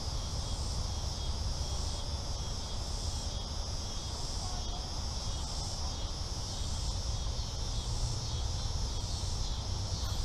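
Steady high-pitched chorus of insects such as crickets, with a low rumble underneath.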